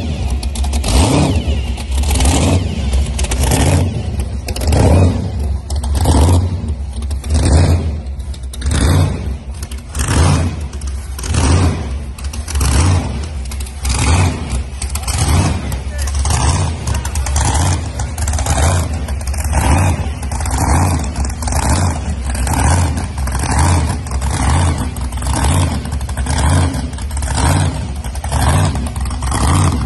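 Supercharged big-block V8 of a 1960s Chevrolet C10 running with a heavy, lumpy cam lope, its low rumble surging evenly a little over once a second.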